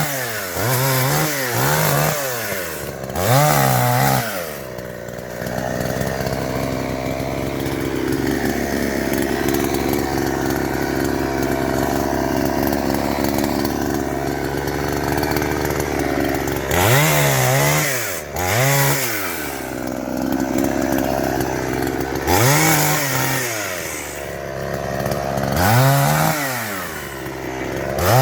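Chainsaw revving up and down in short throttle blips, then running steadily under load through a long cut into the felled fruit tree's wood from about five to sixteen seconds in, then revving in blips again near the end.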